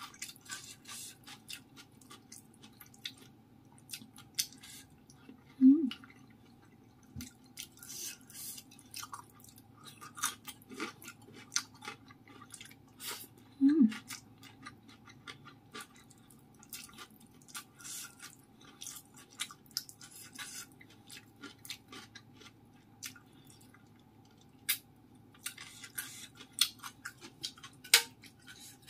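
Close-miked wet chewing and lip smacks of someone eating steamed pomfret and rice with her fingers. Many small clicks throughout, with two louder smacks about six and fourteen seconds in.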